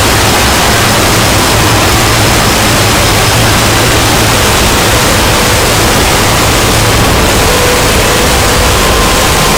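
Deliberately overdriven, earsplitting meme sound effect: a constant wall of harsh distorted noise spread across all pitches, unchanging in loudness, with faint steady tones showing through in the second half.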